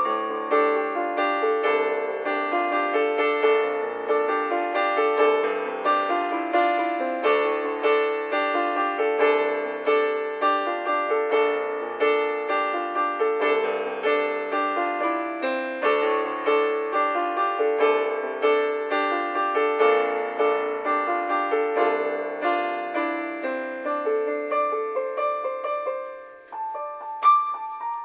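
Solo piano music: a flowing passage of chords and running notes at a steady pace, dying down briefly near the end before a new phrase begins.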